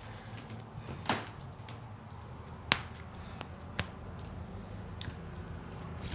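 Four sharp clicks over a steady low hum, the loudest about two and a half seconds in.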